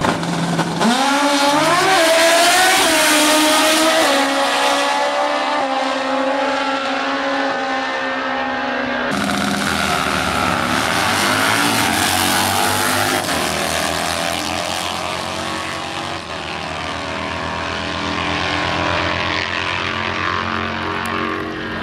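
Drag-racing motorcycle engines revving hard at the start line, the pitch swinging up and down. About nine seconds in the sound changes abruptly to loud, steady engine running as the bikes race down the strip, the pitch slowly sinking.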